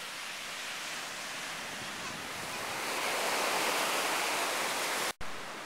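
Surf breaking on a sandy beach: a steady rushing wash that swells louder about halfway through, with a brief sharp break in the sound near the end.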